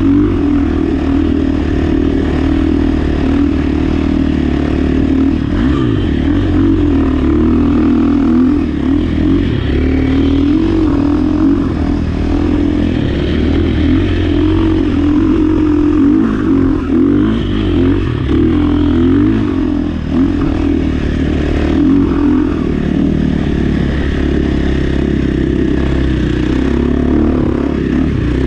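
KTM dirt bike engine running steadily under load as the bike is ridden over sand dunes at about 40–50 km/h, its pitch rising and falling slightly with the throttle.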